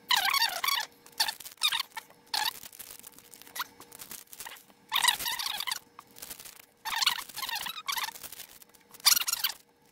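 A man's voice played in fast-forward: his talk is sped up into short bursts of high-pitched, squeaky chatter with brief gaps between them.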